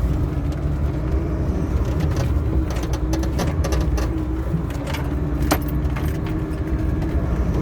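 Car driving slowly, heard from inside the cabin: a steady engine and road rumble with a low hum, and small clicking rattles throughout. One sharper click comes past the middle.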